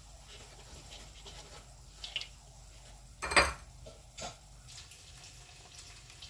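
Kitchen utensils being handled: a few short clinks and knocks, the loudest about three and a half seconds in.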